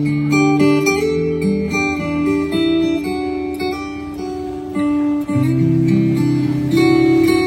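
Song intro of acoustic guitar music played through a Bang & Olufsen Beoplay P6 portable speaker, with plucked and strummed notes changing every second or so over a sustained low bass line.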